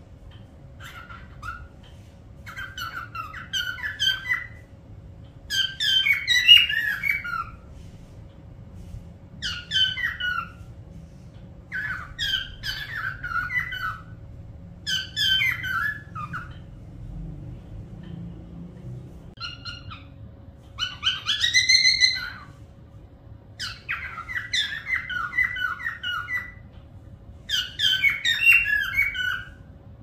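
A parrot calling and whistling in repeated short bouts of quick chirpy chatter, each a second or two long with brief pauses between. A little past two-thirds of the way through comes one longer whistle that rises and then falls.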